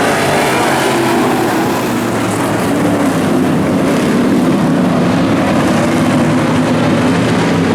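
Several street stock race car engines running together, a loud steady drone of overlapping engine notes that waver in pitch.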